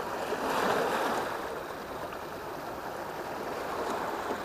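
Small sea waves washing and splashing over rocks at the foot of a concrete seawall, a steady wash that swells briefly about a second in.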